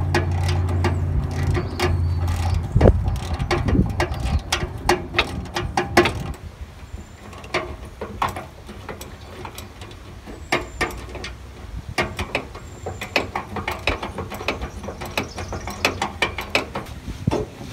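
Hand socket ratchet clicking in quick runs as bolts are worked loose under a car to take off the exhaust. A low steady hum sits under the clicks and stops about six seconds in.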